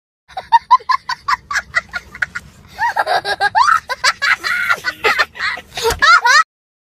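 A young child laughing hard in a high-pitched cackle: quick short bursts at first, then longer rising and falling squeals, stopping suddenly near the end.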